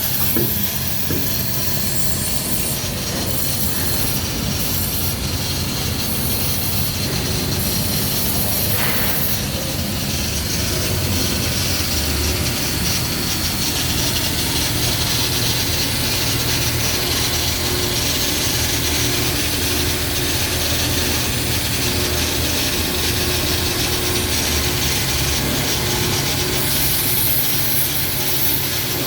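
Welding on a power-plant boiler tube: a continuous scratchy arc hiss over a steady low machinery hum.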